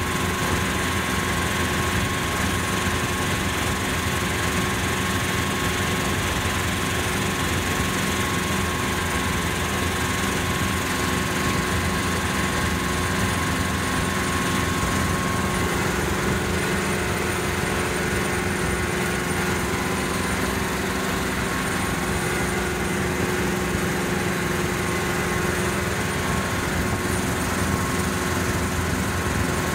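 Steady cabin noise of a Hughes/Schweizer 300 light piston helicopter in flight: the engine and rotor drone evenly, with rushing air over it, heard from inside the cockpit.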